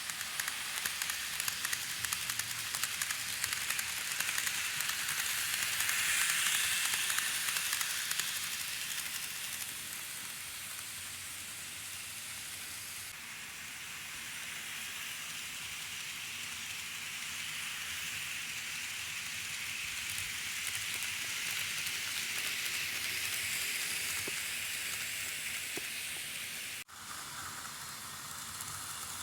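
N gauge model train running on the track: a steady hissing rolling noise with small clicks that swells about six seconds in and again later, then breaks off abruptly near the end.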